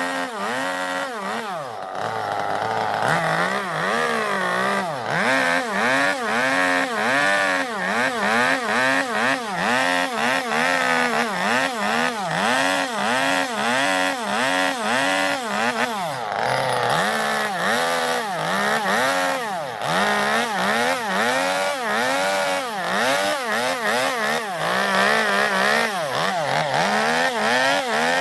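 Gasoline chainsaw carving into zelkova wood to hollow out a bowl, its engine pitch rising and falling over and over, roughly every two-thirds of a second, as the bar is worked in short strokes. A little past the middle it holds at a higher, steadier pitch for a few seconds before the swings start again.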